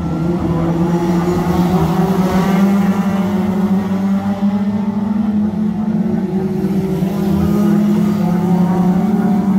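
A pack of 2.0-litre Hot Rod race cars racing on an oval, several engines running at high revs at once, their pitches rising and falling as the cars pass close by, loudest about two to three seconds in and again near the end.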